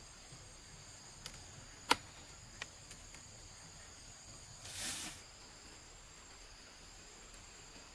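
Insects chirring steadily in two high, even tones, with one sharp click about two seconds in and a short swish near five seconds in.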